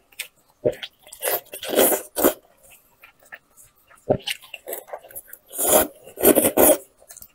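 Close-miked eating sounds: wet squelching and tearing as cooked meat is pulled apart with gloved hands, with chewing and mouth smacks. They come in irregular bursts, loudest about two seconds in and again around six seconds.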